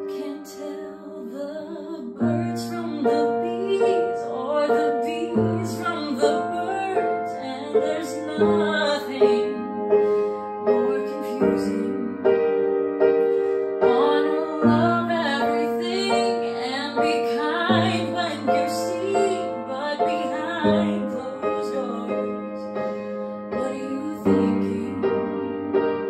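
A young woman sings a slow song while accompanying herself on piano, the piano chords changing about every three seconds under her voice.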